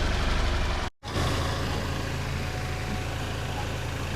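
A vehicle engine idling steadily, broken by a brief dead-silent gap about a second in, after which a steady low engine hum carries on.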